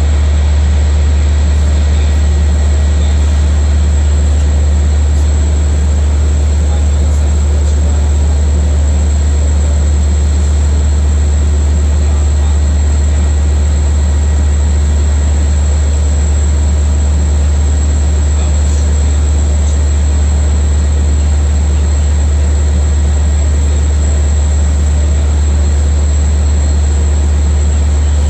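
A loud, steady low machine drone with a faint high whine that does not change at all.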